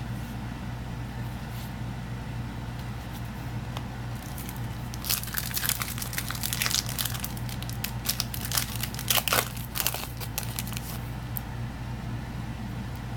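Foil booster pack wrapper being torn open and crinkled by hand: a run of crackling begins about five seconds in and lasts some six seconds, over a steady low hum.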